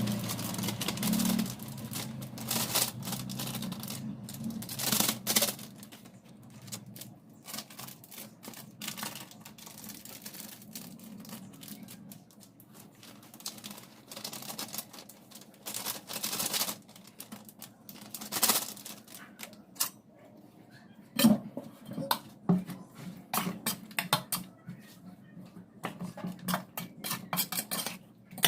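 Kitchen handling sounds: irregular clicks, knocks and clinks of dishes and utensils being moved about, over a low steady hum.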